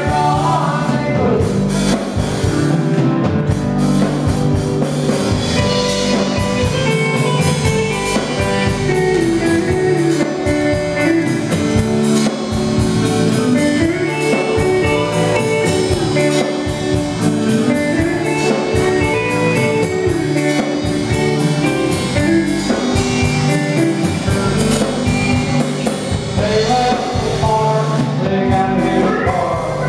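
A live country band playing a song: acoustic guitar over a steady drum beat.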